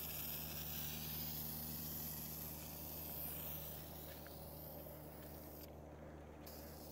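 Aerosol spray paint can hissing in a long continuous spray, dying away about halfway through.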